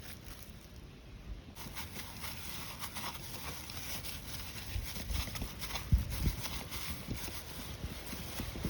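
Irregular soft knocks and thuds, becoming more frequent after the first second or two, with one sharper knock about six seconds in.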